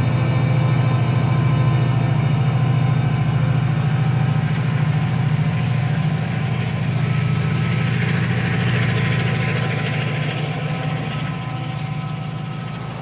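Class 68 diesel-electric locomotive's Caterpillar V16 engine under power as it accelerates away, a steady low drone with a thin whine that rises slowly in pitch. The sound fades gradually over the last few seconds as the locomotive draws away.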